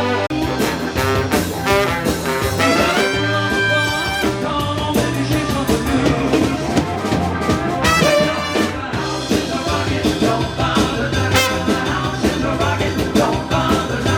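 A live horn band playing an instrumental passage: a brass section over drum kit and bass, keeping a steady beat.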